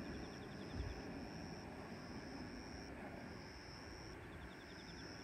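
A series of faint, high, thin calls, each held steady for half a second to a second with short gaps between them. Two quick trills of ticks come about a second in and again near the end, over a faint low rumble of outdoor ambience.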